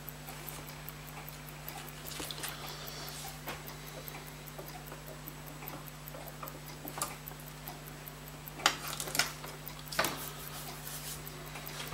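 Fast, steady, faint ticking runs throughout, with a few louder clicks and taps from small steel tools handling the watch, and a low steady hum underneath.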